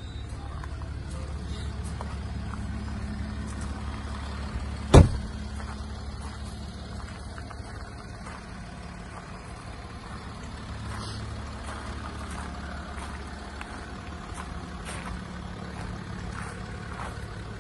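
Land Rover Discovery 4's 3.0 SDV6 diesel idling steadily, with a single loud thump of a car door shutting about five seconds in.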